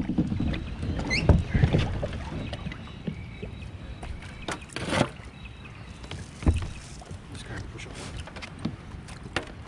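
Hobie Outback kayak being paddled out: irregular paddle splashes and knocks against the plastic hull, with a brief squeak about a second in.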